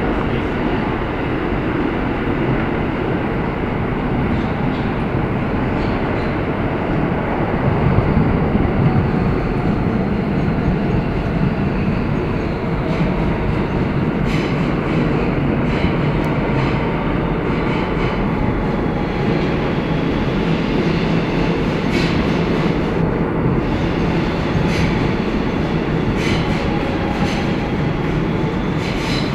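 Inside an R160 subway car running through a tunnel: a loud, steady rumble of wheels on rail with a faint, slowly shifting whine, and a few sharp clicks from the wheels over the track in the second half.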